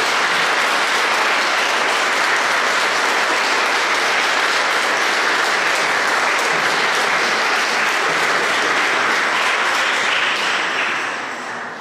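A congregation applauding: steady, dense clapping from many hands that tapers off near the end.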